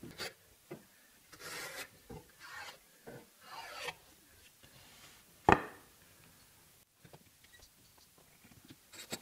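Small hand plane taking three short shaving strokes off a wooden edge, trimming about half a millimetre to bring it square. A single sharp knock follows about halfway through, then a few light clicks.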